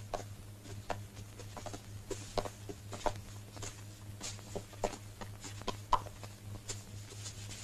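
Faint, irregular soft clicks and rustles of men moving about, over a steady low hum on the film soundtrack.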